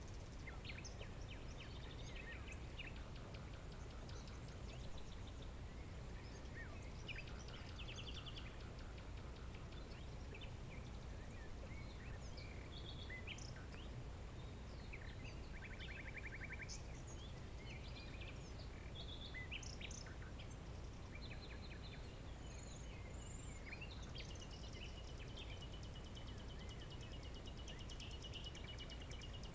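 Several wild birds calling at once, with short chirps and quick trills scattered throughout, over a steady low background rumble.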